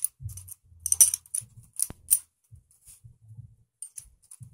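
Irregular light metallic clicks and clinks as a V-band clamp is handled and fitted back onto a VF43 turbocharger housing, with soft knocks from the handling.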